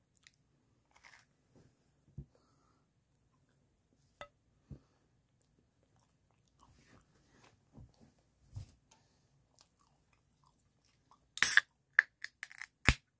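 Faint chewing of a mouthful of pizza, with small scattered ticks. About eleven seconds in, a sharp crack and short fizzing hiss as a can of carbonated soda is opened, followed by a few clicks of the can.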